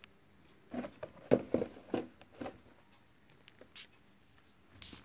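Plastic blister-pack toy box with a card back being handled and turned over: a quick run of light taps and crinkles about a second in, then a few scattered clicks.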